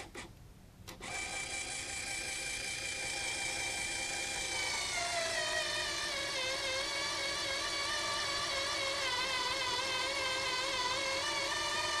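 ECO LLC 8-inch 12 V DC linear actuator's motor whining as it extends, starting about a second in. About four seconds later its pitch drops and wavers as hand pressure loads the rod, but it keeps running without stalling: it overpowers the push.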